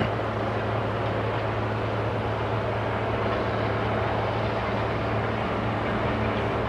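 Farm tractor pulling an implement across a field, its engine running with a steady low drone.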